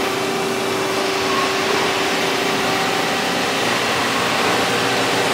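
Haas GT-20 CNC lathe running: a steady machine whir and hiss with one constant hum tone.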